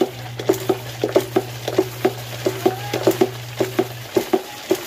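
Rhythmic scrubbing strokes, about four a second, of a long-handled cleaning tool worked back and forth over a tiled floor. A low steady hum runs underneath and stops about four seconds in.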